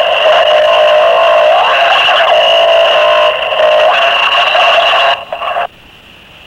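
Harsh, distorted noise music made with microphones and homemade electronics: a dense, loud wall of mid-range noise with steady whining tones, one of which bends briefly in pitch. About five seconds in it stutters and cuts off, leaving only a low steady hiss.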